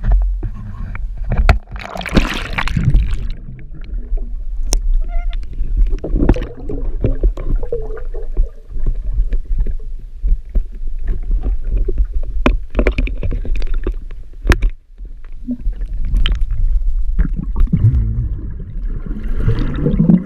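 Water splashing and sloshing against a small boat as a person swims in the lake to free a snagged lure, with a louder splash about two seconds in. A steady low rumble sits under it, along with scattered knocks.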